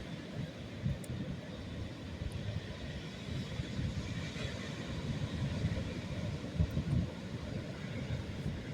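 Atlantic Ocean surf washing on the beach, with wind buffeting the microphone in uneven low gusts. The hiss of the wash swells slightly about halfway through.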